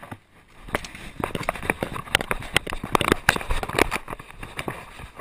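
A dog's footfalls on paving, heard through a GoPro strapped to its chest: a quick, irregular patter of clicks and knocks from its paws and the camera mount jolting with each stride. It begins about half a second in, after a brief quiet moment.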